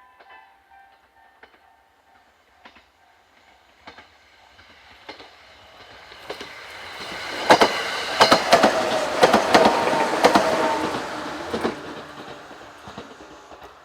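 A Sangi Railway Sangi Line train approaching and passing close by. Its wheels click sharply over the rail joints in quick runs while it is loudest, then the sound fades as it goes away.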